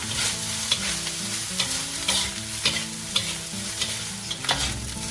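A spatula scraping and knocking against a large wok as fried rice is stir-fried, with the sizzle of hot oil underneath. Irregular sharp scrapes and clacks come every fraction of a second.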